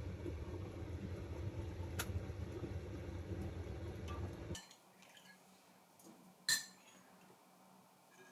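A steady low rushing noise that stops abruptly about four and a half seconds in. About two seconds later comes a single sharp clink of tableware knocking together.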